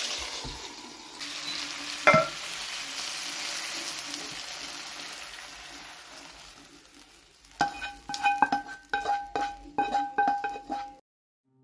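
Bell pepper strips and garlic sizzling in hot oil in a frying pan, the sizzle fading as the pan is tipped out into a glass bowl. There is a sharp clink about two seconds in. Near the end comes a quick run of ringing clinks, metal against the glass bowl, as the last pieces are scraped out of the pan.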